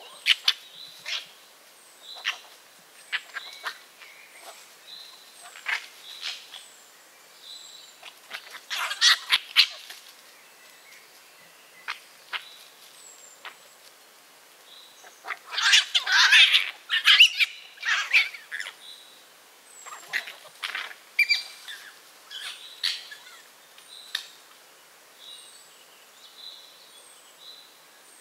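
Red fox cubs squabbling over food, giving sharp high-pitched squeals and chatters in short irregular bursts. The calls come in clusters, with a dense, loud flurry about halfway through.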